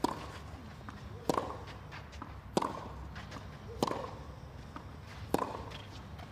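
Tennis ball struck back and forth in a baseline rally on a clay court: five sharp racket hits, about one every 1.3 seconds.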